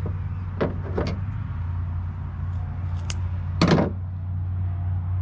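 Steady low hum with a few sharp knocks, the loudest about three and a half seconds in.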